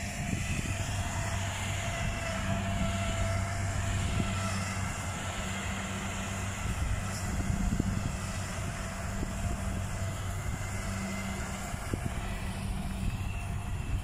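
Combine harvesters running while harvesting rice: a steady engine drone with an even low hum.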